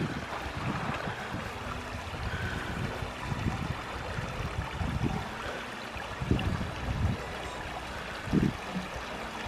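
Water splashing and running at the edge of a stream as a watering can and buckets are dipped and filled by hand. Wind rumbles on the microphone in gusts.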